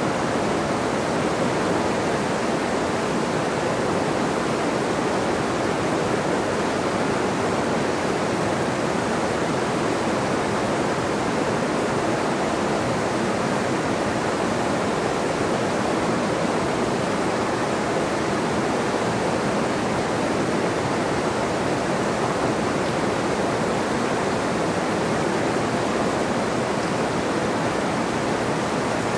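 Fast, high-gradient mountain river rushing over rocky rapids, a steady, even rush of water.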